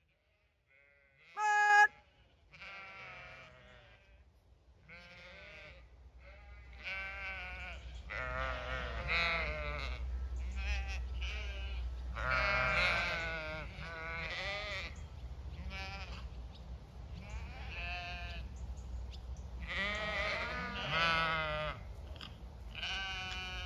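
A flock of Zwartbles sheep bleating as they run in to be fed: many overlapping, wavering bleats that come in waves. One short, loud call about a second and a half in stands out above the rest.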